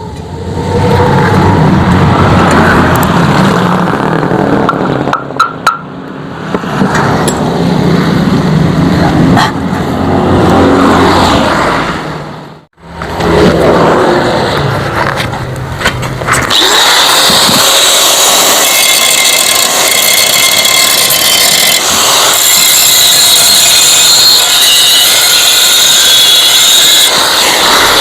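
Power tools working the steel of a Yamaha RX-King exhaust muffler as it is cut open and hollowed out. After a brief break partway through, a high, steady grinding sound takes over.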